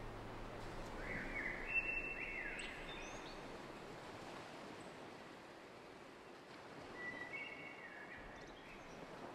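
Quiet ambient passage: a soft, even hiss of outdoor ambience with a few short, high chirping tones about a second in and again near the end.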